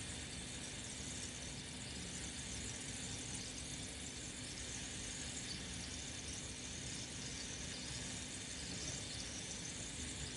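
Steady home-aquarium ambience: a low, even hum with a faint steady tone and a high hiss.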